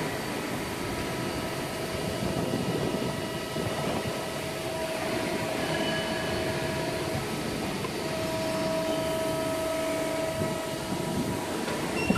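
A CNC hydraulic press brake running with the steady hum of its pump. A higher tone comes in twice for a couple of seconds each as the ram moves to bend a sheet-metal part.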